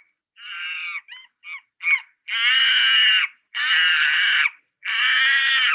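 Recorded monkey calls: several short calls, then three longer, louder calls of about a second each.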